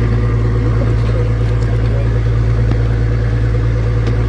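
Engine of a mechanized fishing boat running steadily: a loud, even low drone.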